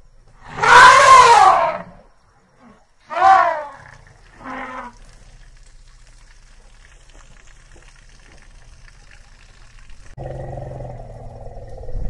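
African elephant trumpeting: a long loud call about half a second in, a shorter one about three seconds in and a fainter third just after, each rising then falling in pitch. A low steady droning sound starts near the end.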